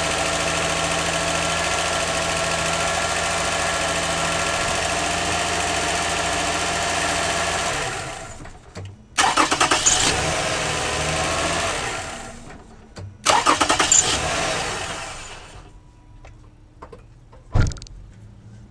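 Toyota Sienna's 3.3-litre V6 running steadily, just started after the worn original starter was tapped with a hammer to make its brushes contact. It dies away about eight seconds in. Two short loud bursts follow, about 9 and 13 seconds in, and there is a single sharp knock near the end.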